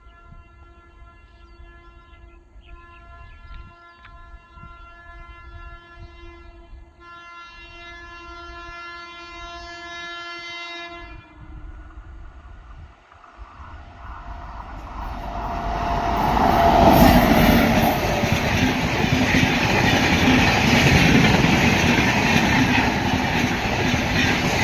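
Indian Railways electric locomotive horn sounding one long held blast that stops about eleven seconds in. A few seconds later the train comes by close, its loud rushing and wheel noise building and staying heavy to the end.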